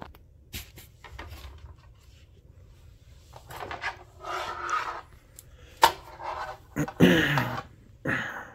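Scraping and rubbing noises in several short spells from about three seconds in, with a couple of sharp clicks, one near the start and a louder one about six seconds in.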